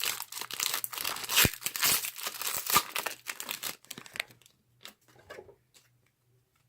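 A 2017 Donruss football trading-card pack's wrapper being torn open and crinkled by hand for about three and a half seconds, then a few light rustles and clicks as the cards are handled, fading out.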